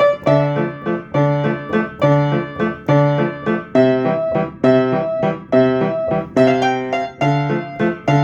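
Piano playing a repeated riff of chords and notes, the same figure coming round about every second with small variations.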